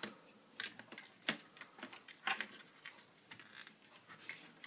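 Irregular light clicks and taps of small parts being handled: fingers working the fuse and its holder inside an opened multimeter.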